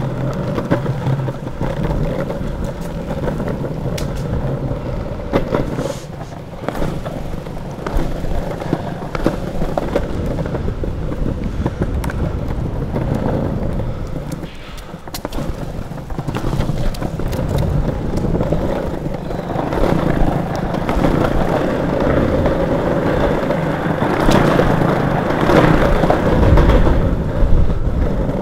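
Longboard wheels rolling over paved paths: a continuous rumbling road noise with occasional sharp clicks, growing louder in the last several seconds.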